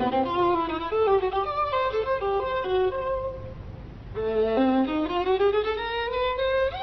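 Soundtrack music: a violin playing a slow melody that grows quiet about halfway through, then climbs in a long upward glide.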